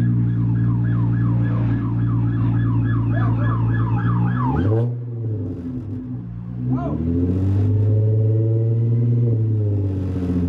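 Car engine running with a low steady drone, under a repeated rising chirp that sounds about three times a second for the first four and a half seconds. The chirping then stops and the engine note drops and climbs back up.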